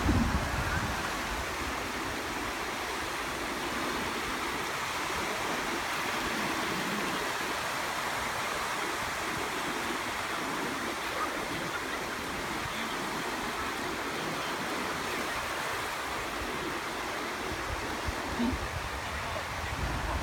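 Small waves breaking and washing over shallow water at the shoreline, a steady hiss of surf. Brief low rumbles of wind on the microphone at the start and again near the end.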